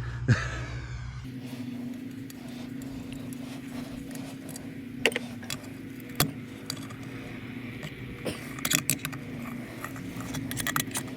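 Channel-lock pliers and loose metal parts clinking and clicking in scattered sharp strikes as corroded fittings are worked loose, with a cluster of clinks near the end. A steady low hum runs underneath.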